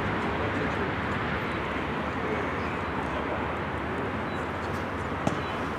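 Steady outdoor background noise with faint voices of players calling out across the pitch, and a single sharp knock near the end.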